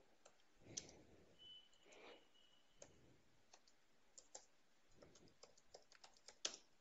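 Faint computer keyboard typing: irregular keystroke clicks, more frequent in the second half.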